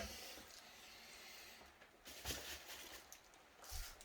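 Faint handling noises over quiet room hiss: a couple of soft knocks and rustles as items on a workbench are moved and tidied away.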